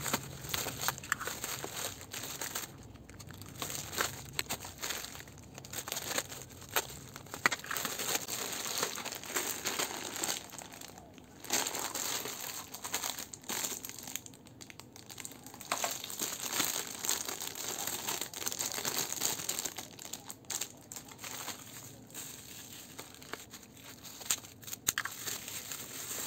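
Plastic packaging crinkling and rustling in hands as a plastic-wrapped parcel and its bagged items are unwrapped, in bursts with short pauses.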